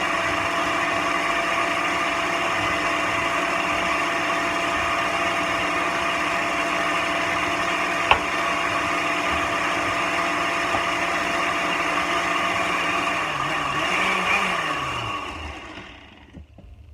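Electric blender running steadily as it blends chopped pineapple, with one sharp click about eight seconds in. About fifteen seconds in it is switched off and the motor winds down, its pitch falling as it stops.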